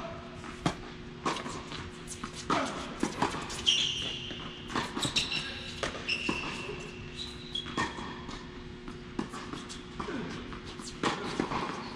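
Tennis being played: sharp racket strikes and ball bounces at irregular intervals, with short high squeaks of tennis shoes on the court in the middle of the rally.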